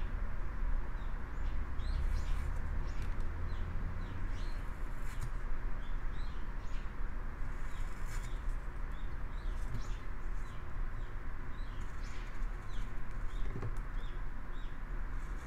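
Small hand gouge paring a basswood block in short cuts, with many short, high, downward-gliding bird chirps, about two a second, over a steady hiss.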